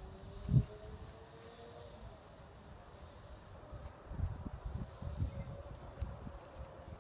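Insects trilling steadily at a high pitch, with a few low thumps: a loud one about half a second in and several more around four to five seconds in.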